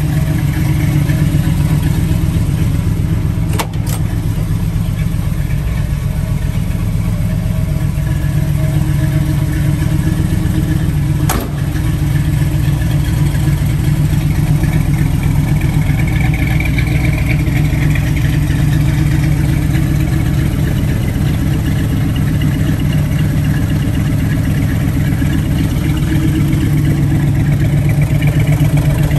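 1968 Chevrolet Camaro's 327 small-block V8 idling steadily.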